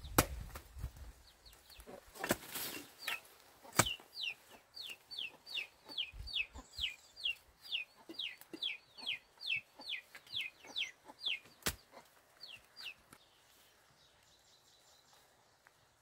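A chick peeping over and over: short, high, falling peeps, about two a second, stopping near the end. A few sharp knocks of a hoe striking the ground come in between.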